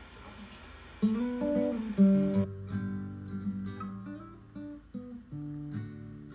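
Nylon-string classical guitar playing chords, the notes ringing out after each attack; the first chord comes about a second in.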